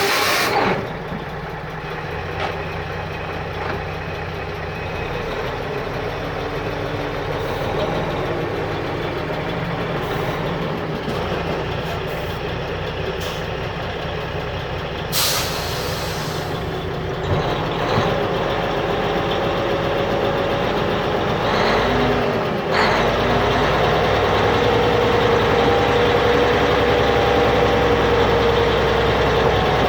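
Dump truck's diesel engine starting, then running as the truck reverses and stops, with a sharp air-brake hiss about halfway through. From about three quarters of the way, the engine runs harder under a rising whine as the tipper tray is raised.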